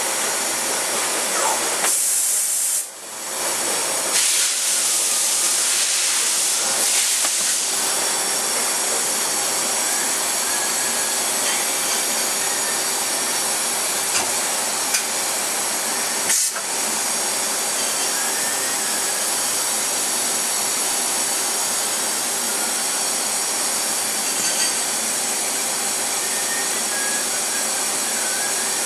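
Mori Seiki DMG DMU 50 five-axis machining center running: a steady hiss with faint steady machine tones under it. A louder high hiss comes in about two seconds in and lasts several seconds, and there is a single click about halfway through.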